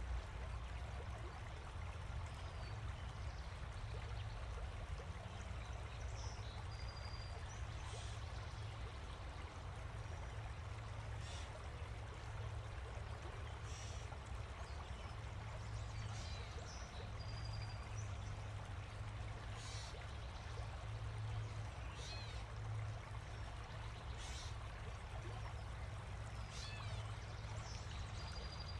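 Steady rushing, stream-like running water with a low rumble under it, and short high chirps every few seconds.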